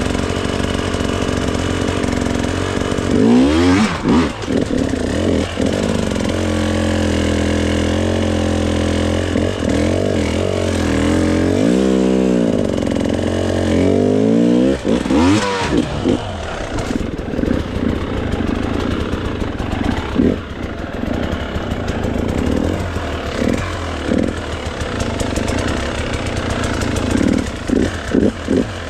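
Dirt bike engine working through rough terrain, its revs rising and falling in several blips, with the biggest swings about 3, 12 and 15 seconds in and steadier running between them. A few sharp knocks cut through the engine.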